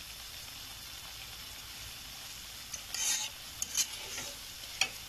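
Semolina sizzling with a steady hiss as it roasts in oil in a pan, at the stage where it has just started to roast. About three seconds in, a metal spoon stirs and scrapes it against the pan, with a few light clicks.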